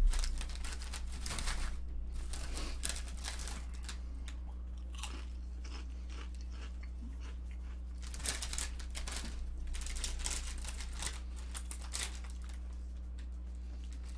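Crunching and chewing of a Ruffles potato chip close to the microphone, in bouts: through the first few seconds, then again around eight to ten seconds in, with a sharp click right at the start. A steady low electrical hum runs underneath.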